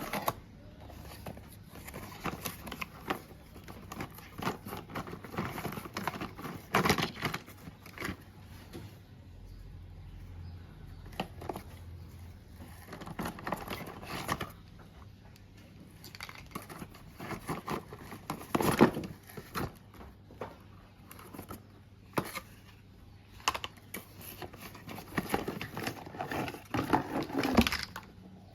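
Small plastic toy pieces being handled and fitted together: irregular clicks, taps and light rustling, with a louder knock about two thirds of the way through.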